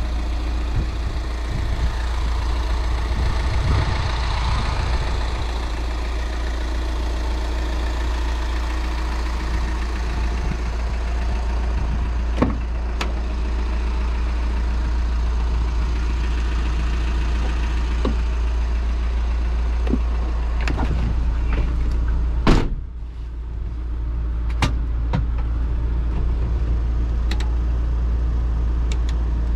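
Inside the cabin of a 2012 Volkswagen T5 panel van with its 84 hp 2.0 TDI four-cylinder diesel, on the move: a steady low engine and road drone, with scattered knocks and rattles. The loudest knock comes about 22 seconds in, after which the noise is briefly quieter.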